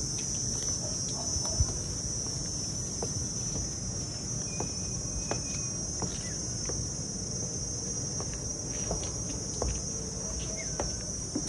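Steady high-pitched chorus of insects, with a few faint knocks scattered through it.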